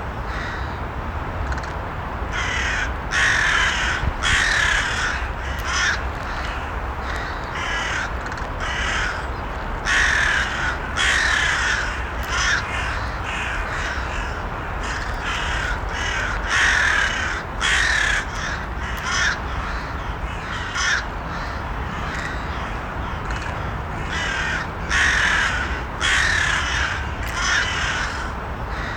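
Crows cawing repeatedly, short harsh calls in irregular runs every second or two over a steady low background noise.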